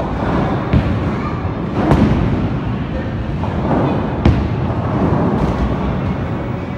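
Bowling alley din: a steady low rumble of bowling balls rolling down the lanes, broken by several sharp knocks and clatters of balls striking pins.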